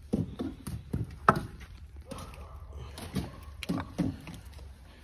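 Irregular knocks and taps of stone masonry work: pieces of stone veneer and a trowel being picked up and set down on the concrete fire-pit cap, the sharpest knock about a second in.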